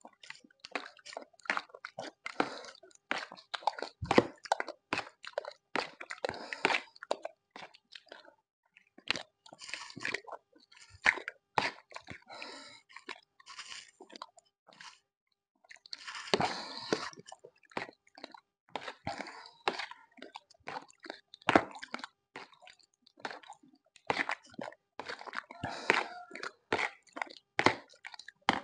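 A person eating set red gelatin from a plastic bowl with a spoon, close to the microphone. A dense, irregular run of wet slurps, smacks and chewing, with sharp spoon clicks, and a short pause about eight seconds in.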